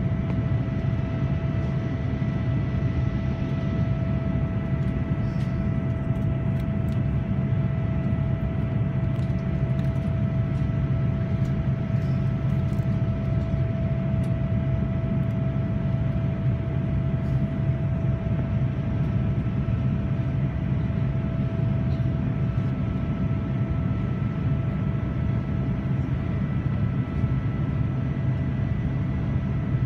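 Cabin noise inside a Boeing 787-9 Dreamliner climbing after takeoff: the steady low rumble of its GEnx-1B engines and the airflow, with a steady hum over it.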